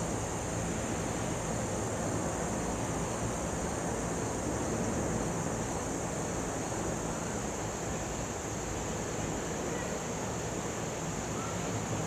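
Steady outdoor ambience: a continuous high-pitched drone of insects over a low, even rumble with a faint hum.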